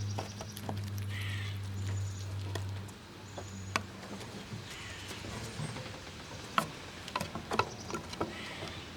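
Squirrels gnawing and cracking nut shells: irregular sharp clicks and cracks, coming thicker and louder in the second half. A steady low hum underneath stops about three seconds in.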